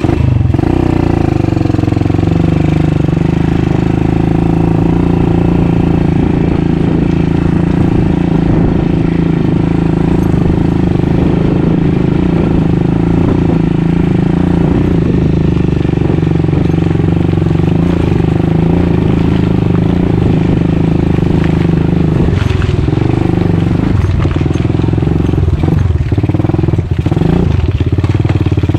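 Dirt bike engine running steadily while being ridden, heard close up from the bike itself. From about three-quarters of the way through, the engine note wavers and dips briefly several times, with short knocks mixed in.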